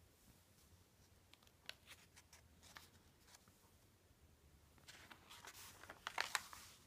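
Newsprint paper handled in the hands: a few faint crinkles and clicks, then a louder rustle of a page being turned near the end.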